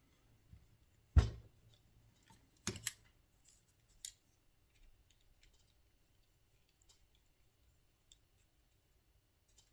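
Small tools and parts handled on a workbench: a sharp knock about a second in, a quick double click near three seconds and another click around four, then only faint small ticks.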